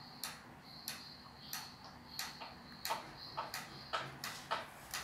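Hammering from nearby construction work: a steady series of sharp knocks, about one and a half a second.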